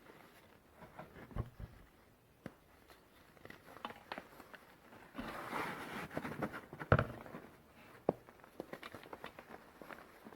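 Pieces of reformed gym chalk crunching and crumbling, with scattered sharp cracks. A denser crumbling stretch comes about five seconds in, and the loudest snap follows about two seconds later.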